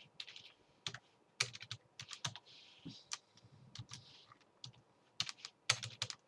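Computer keyboard typing: irregular keystroke clicks, some in quick runs.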